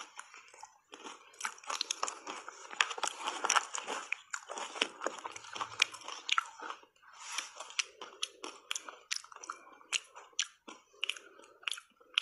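Close-miked crunching and chewing of frozen shaved ice coated in matcha powder: dense crackling crunches in the first few seconds, then sparser single sharp cracks.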